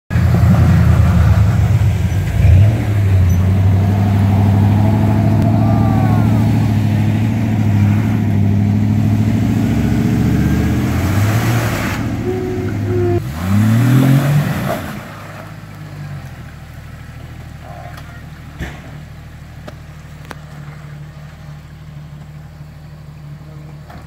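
Jeep Cherokee XJ engine working hard under load as the truck crawls up a rock ledge, its revs shifting. About 13 seconds in it revs up sharply, then drops back to a much quieter steady idle, with a single knock a few seconds later.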